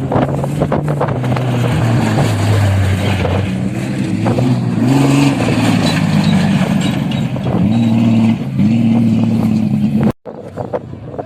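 Vehicle engine running under changing throttle, its pitch rising and falling several times over a rushing background. About ten seconds in, the sound cuts off abruptly and returns quieter.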